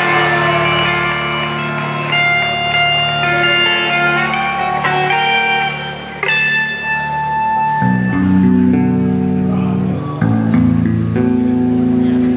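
Live instrumental rock on two electric guitars and an electric bass played through amplifiers, with sustained low notes under a picked melody line. About eight seconds in, the low end gets heavier with fuller chords.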